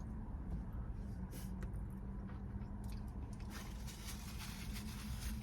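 Soft, wet chewing of cheese fries, in a few short bursts, over a steady low hum inside a parked car.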